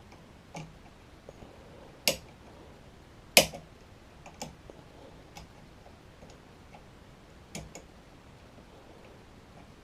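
Sparse, irregular metallic clicks and taps of a lever-lock multi pick being handled and worked in a five-lever mortice deadlock, with two louder knocks about two and three and a half seconds in.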